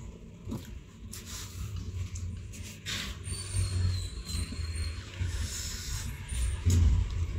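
Close-miked chewing of crisp raw green mango, with short crunches over a low mouth rumble.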